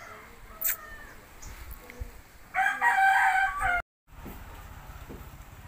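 A sharp click just after the start, then a rooster crows once, a call of over a second that breaks off abruptly.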